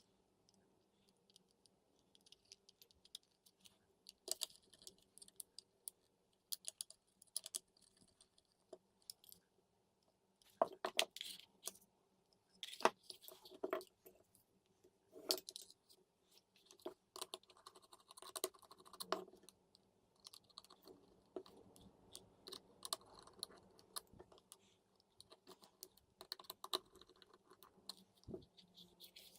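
Faint, irregular clicks, taps and scratches of small plastic parts and wires handled by hand: a Sonoff Wi-Fi smart switch being wired up to a lamp.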